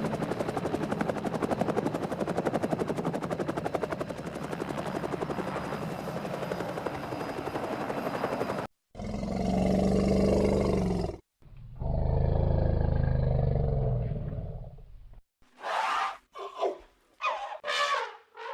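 Animal-like growls and roars: a long, rapidly rattling growl for about nine seconds, then two loud roars, then a few short snarls near the end.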